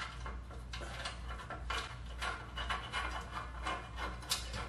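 Light metal clinks and scraping as a spring-loaded exhaust flange bolt and nut are handled and fitted by hand, irregular and unhurried, over a steady low hum.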